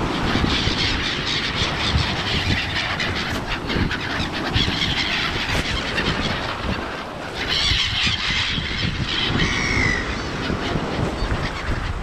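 A flock of black-headed gulls calling over food thrown on the shingle, busiest about halfway through and again near the end, over wind on the microphone and surf washing on the pebbles.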